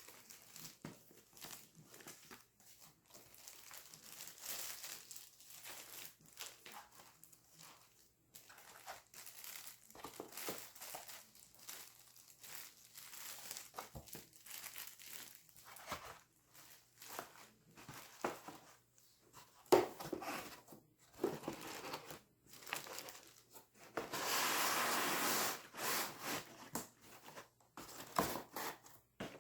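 Laptop packaging being handled and unpacked: irregular rustling and crinkling of wrapping with small handling knocks, and one longer, louder rasp of about a second and a half near the end.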